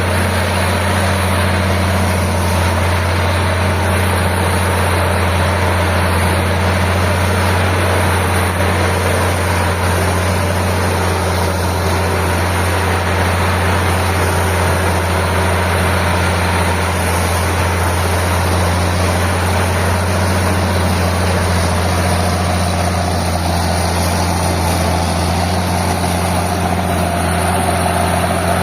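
Old Caterpillar D6 crawler dozer's diesel engine running steadily at constant speed, a deep even rumble with no revving.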